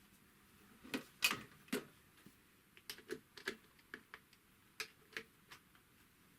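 Light, irregular clicks and taps, around fifteen of them starting about a second in, from handling the oiler and parts of a Typical GC2605 industrial sewing machine while its oil holes are being oiled.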